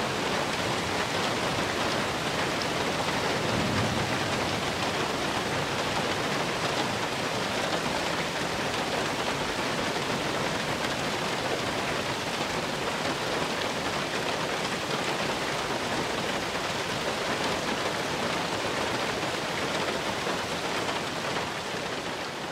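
Steady rain falling, an even hiss of countless drops, fading out near the end.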